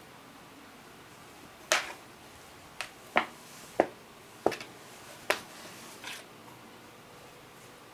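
Sharp, irregular clicks and knocks, about seven of them over a few seconds, from a kitten's paws and claws striking the plastic floor tray and wire bars of a hamster cage as it rolls and kicks.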